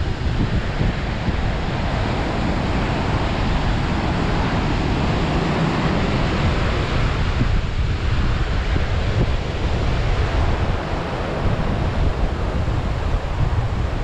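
Ocean surf breaking and washing up a sandy beach, a steady rushing, with wind buffeting the microphone as a fluttering low rumble.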